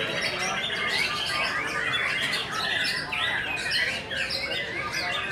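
White-rumped shama singing a fast run of varied whistles and trills, overlapped by several other caged songbirds singing at once.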